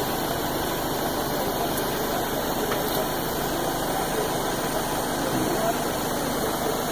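2008 Toyota Camry's 16-valve four-cylinder engine idling steadily under the open hood.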